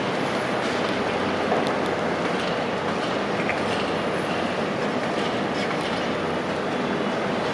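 Heavy construction machinery running steadily, an even mechanical rumble with a few faint metallic ticks.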